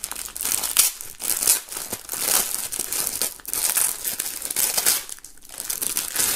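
Clear plastic bag crinkling in irregular bursts as hands pull at it and work it open around a folded fabric flag.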